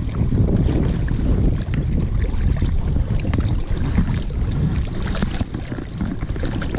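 Wind rumbling on the microphone, with river water sloshing around a landing net and wading legs.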